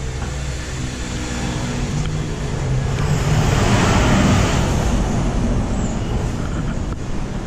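Road traffic: motor vehicle engines running, with one vehicle passing close by, loudest about four seconds in.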